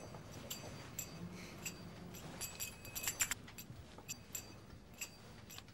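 Faint, scattered metallic jingling of small metal jingles, shaken now and then and coming more often near the end.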